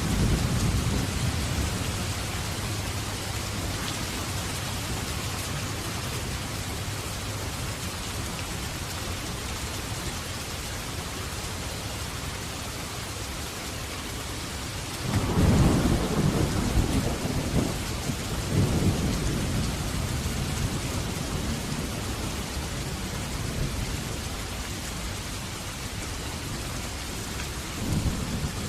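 Heavy rain falling steadily with a constant hiss, and thunder rumbling through it: a roll dying away in the first couple of seconds, a louder roll about halfway through that rumbles on for several seconds, and a short rumble near the end.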